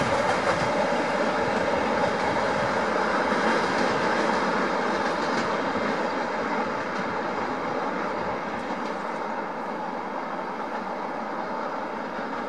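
Running noise of a train hauled by an SM42 diesel shunting locomotive as it pulls away down the line, a steady rumble and hiss that slowly fades.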